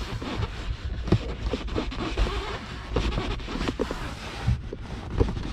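Continuous rustling and scraping with scattered small clicks and soft thumps: hands working a car's rear seat cushion loose from its clips.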